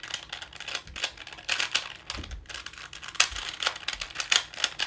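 Plastic clicking and rattling of a 2x2x4 Rubik's cuboid being turned quickly by hand: a run of uneven clacks, several a second.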